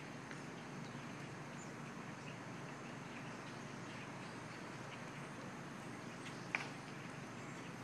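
A flock of blackbirds calling, with many short overlapping calls over a steady background noise, and one sharper sound about six and a half seconds in.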